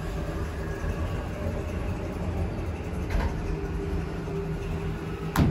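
Steady low mechanical hum and rumble, with a single sharp click near the end.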